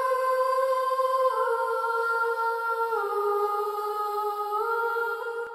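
Soft soundtrack music made of long held notes, stepping down in pitch twice and back up near the end.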